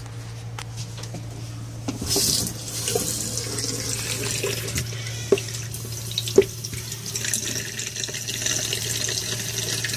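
A sink tap turned on about two seconds in, water running steadily into the basin, with two sharp knocks partway through, over a steady low hum.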